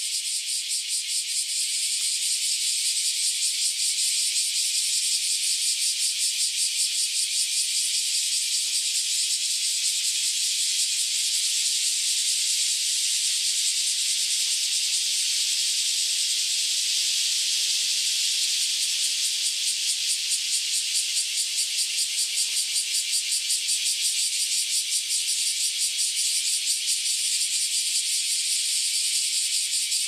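Cicadas in loud chorus: a continuous, high-pitched buzz with a rapid pulsing.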